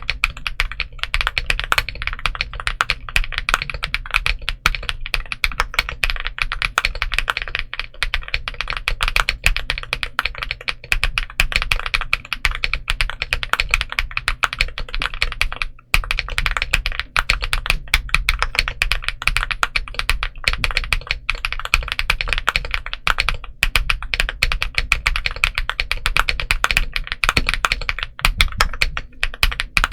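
Monsgeek M1V5 aluminium 75% mechanical keyboard being typed on quickly and continuously, with a brief pause about halfway through.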